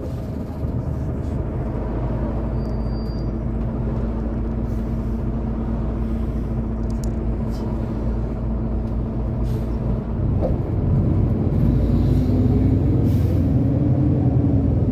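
Bus engine and road noise: a steady low rumble with a held engine hum. About ten seconds in it gets louder and the engine note rises and wavers.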